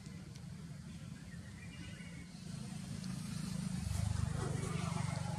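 Low rumble of a motor vehicle passing, swelling about halfway through and loudest near the end.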